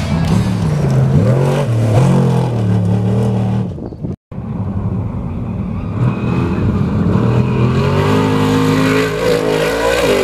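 Off-road race trucks accelerating hard at full throttle, engine pitch climbing and dropping as they shift up through the gears. After a brief cut, another trophy truck's engine climbs steadily as it approaches and passes close by near the end, its pitch falling as it goes past.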